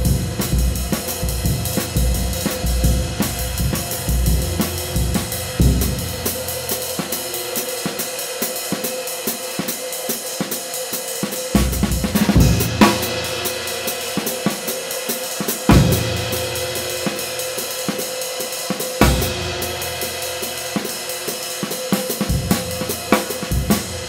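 Handmade 20-inch B20 bronze medium-light ride cymbal (2011 g) played with a wooden drumstick in a steady, quick ride pattern, its wash ringing on under the strokes. Bass drum and snare join in at times, with a few louder accented hits; in the middle stretch the ride plays almost alone.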